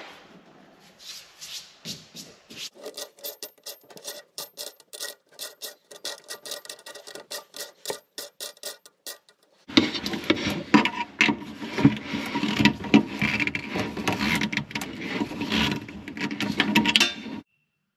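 Metal clicking and scraping as a kitchen faucet's brass mounting nut is threaded up the shank and tightened from under the sink. About ten seconds in it turns to a louder, denser rasping scrape that cuts off abruptly near the end.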